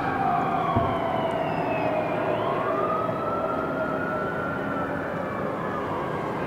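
Emergency vehicle siren wailing, its pitch falling, rising slowly and falling again, over steady city background noise, as units respond to a fire.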